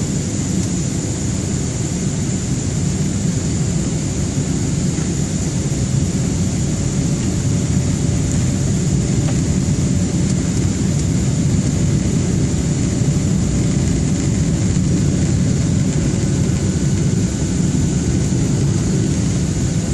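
Steady roar inside an airliner cabin during the descent to landing: engine and airflow noise, strongest low down, with a thin high whine running under it.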